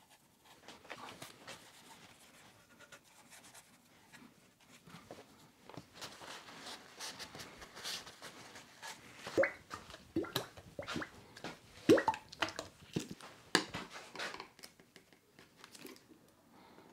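A cloth rubbing and wiping over a wooden chair frame, with a string of short squeaks and light knocks of the wood, busiest in the second half.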